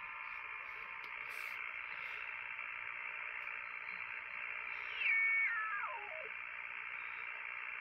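Yaesu FT-One shortwave receiver hissing with 10-metre band noise through its narrow sideband filter while the dial is tuned upward. About five seconds in, a whistling tone falls in pitch in small steps as the tuning sweeps across a signal.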